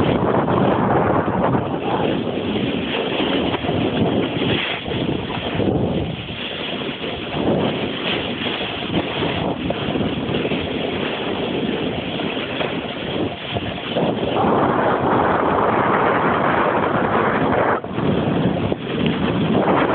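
Wind rushing over the camera's microphone together with the scrape of a snowboard sliding and carving over snow during a run down the slope. The noise swells into a louder stretch about three-quarters of the way through.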